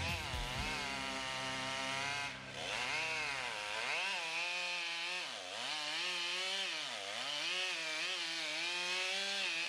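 Two-stroke chainsaw running and being revved, its pitch rising and falling again and again as the throttle is opened and eased off during cuts.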